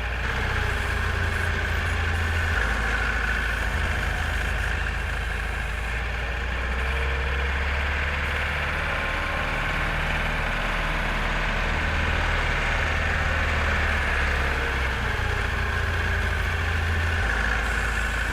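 JCB 4CX backhoe loader's diesel engine running steadily at an even pitch.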